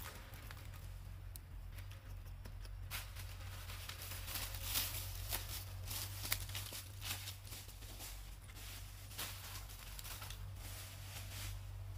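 Dry leaf litter crackling and rustling in irregular short crackles, busiest through the middle of the stretch, over a steady low hum.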